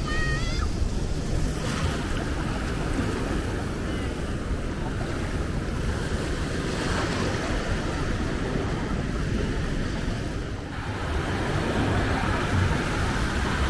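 Surf washing onto a sandy beach, a steady rush of waves with wind buffeting the microphone.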